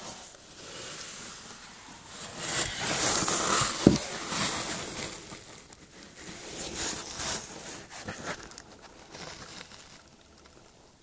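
Kindling fire crackling in the firebox of a wood-burning masonry stove, with rustling that swells louder in the first half and one sharp knock about four seconds in.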